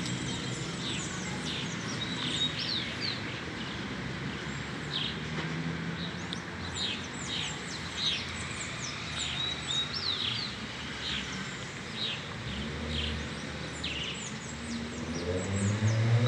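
A crowd of birds calling at dusk, many short, sharp chirps overlapping without pause, over a low steady rumble of traffic; a motor vehicle comes closer near the end.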